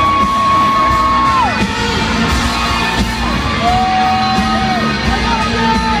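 Live country-rock band playing loudly in an arena, with electric guitar and drums. Long high held notes ring over the band, each sliding down in pitch at its end, the longest in the first second and a half.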